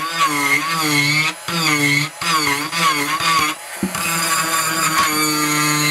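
Handheld rotary tool grinding wooden filler blocks with a conical bit: a motor whine whose pitch repeatedly sags and recovers as the bit bites into the wood, with a brief dip about three and a half seconds in.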